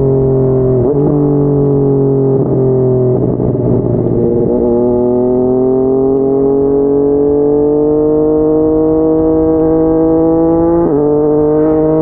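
Yamaha MT-09's inline three-cylinder engine through a Yoshimura R55 slip-on exhaust, heard from the rider's seat while riding. The note eases down for a few seconds, goes ragged briefly, then climbs slowly for about six seconds before breaking sharply about a second before the end.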